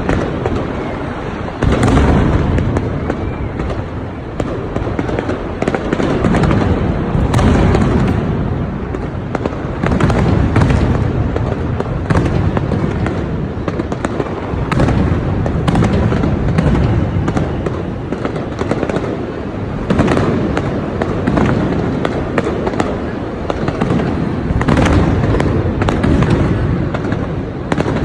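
Fireworks display: a dense, continuous barrage of aerial shell bursts, booms following one another every second or so with crackle between them.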